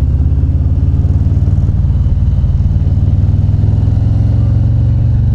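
Motorcycle engine running steadily while riding at a constant pace, a low, even exhaust note.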